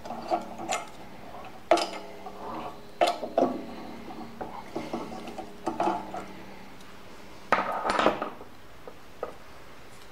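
Four-jaw lathe chuck being worked by hand as the workpiece is freed and taken out: scattered metal-on-metal clinks and knocks, each ringing briefly, with a louder cluster about three-quarters of the way through.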